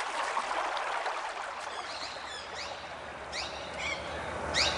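Outdoor ambience: a steady hiss of running water with small birds giving several short, sharp chirps over it, starting about two seconds in.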